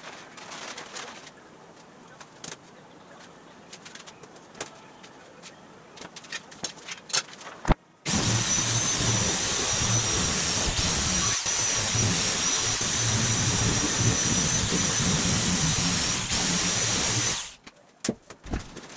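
Power sheet-metal shears cutting aluminum sheet: a loud, steady motor noise with a thin high whine that starts abruptly about 8 seconds in, runs for about nine seconds and cuts off sharply. Before it, only quiet rustling and scattered clicks.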